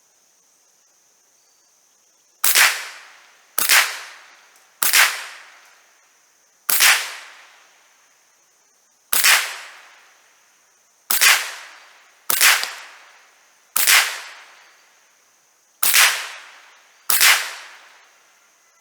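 Ten single shots from a Savage Model 64 semi-automatic .22 LR rifle, fired at uneven intervals, each a sharp crack with a short ringing tail. A steady high-pitched buzz of insects runs underneath.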